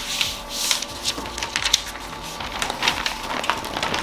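Butcher paper crackling and rustling in irregular bursts as it is folded over and tucked around a brisket.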